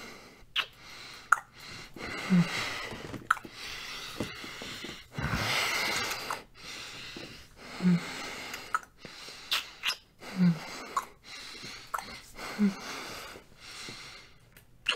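Close-miked kissing: about a dozen spread-out wet lip smacks, several with a short low hum, and breathing between them, with a longer breath about five to six and a half seconds in.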